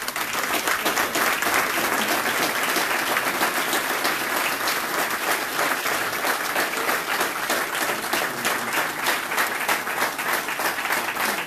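A large audience applauding steadily, many hands clapping together at the close of a speech.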